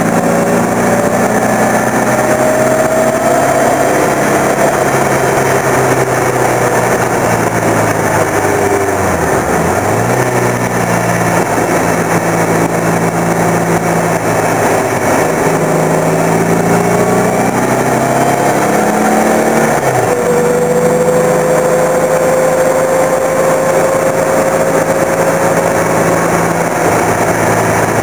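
Turbocharged Volkswagen Beetle's engine driven hard around a circuit, heard on board. Engine pitch climbs and holds, drops sharply twice, about nine and twenty seconds in, as the car slows for corners, then rises again each time, over a steady rush of noise.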